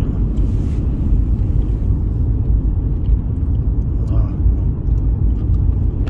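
Car cabin noise while driving on a wet road: a steady low rumble of tyres and engine.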